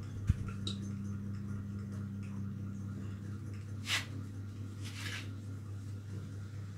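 Shoulder massage: hands gripping and kneading through a cotton T-shirt, with a sharp click just after the start and two brief swishes of hands on the fabric around four and five seconds in, over a steady low hum.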